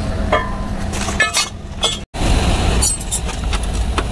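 Light metallic clinks and taps from handling an AC condenser and its aluminium refrigerant pipe fittings, over a steady low rumble. The sound drops out for an instant about halfway through.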